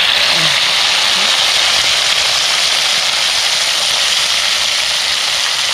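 Small whole fish frying in hot oil in a wok, a loud steady sizzle that eases only slightly over the seconds; the fish have just gone into the oil.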